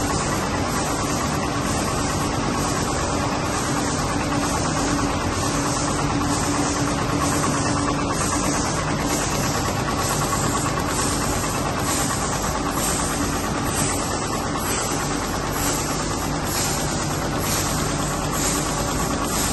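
2011 Nilpeter FB 3300 servo-driven UV flexo label press running in production, the label web feeding through to the rewind: a steady mechanical hum with a constant low tone and a faint hiss pulsing about once a second.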